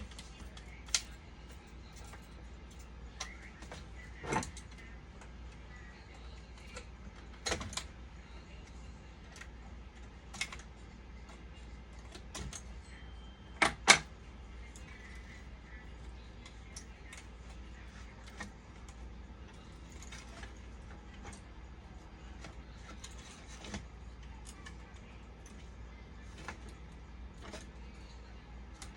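Scattered clicks and taps of small tools and parts being handled, the loudest a quick double knock about 14 seconds in, over a steady low hum.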